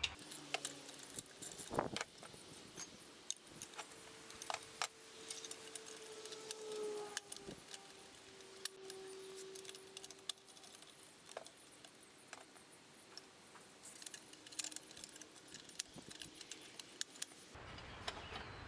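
Faint, quick metallic clicks and clinks of small bolts and hand tools being handled against a Kohler engine's sheet-metal shroud, sped up fourfold.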